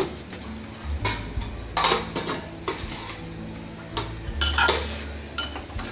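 A steel spoon stirring and scraping taro pieces in an open aluminium pressure cooker, clinking against the metal several times, with the spiced mustard oil sizzling underneath.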